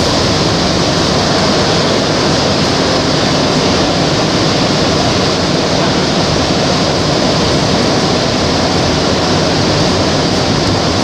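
Montreal metro train running at speed through a tunnel on its rubber tyres, heard from inside the car: a loud, steady rushing noise.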